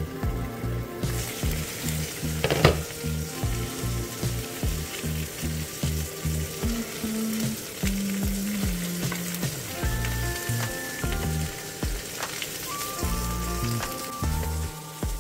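Food frying in a hot pan, a steady sizzle that grows louder about a second in, with one sharp loud crackle about two and a half seconds in. Background music with a steady bass beat plays underneath.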